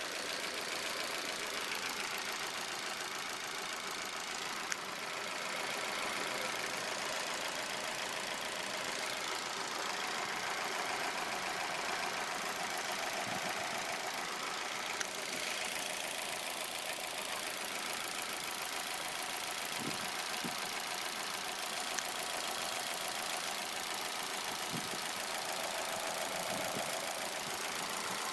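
Opel Mokka's 1.6 Ecotec four-cylinder petrol engine idling steadily, heard with the bonnet open.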